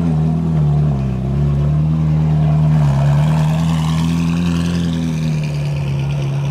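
A car engine running loud at low revs, a deep steady drone that rises and dips slightly in pitch.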